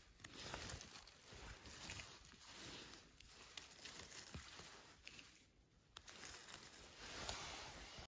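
Faint rustling and crackling of dry leaves, moss and twigs as hands pick through the forest floor and cut mushrooms with a small knife, with a few small clicks. It goes quieter for a moment about five and a half seconds in.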